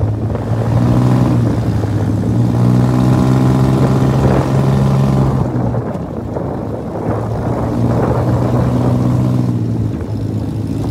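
Engine of a motor vehicle running steadily as it drives along, heard from on board, with a short drop in engine note about halfway through.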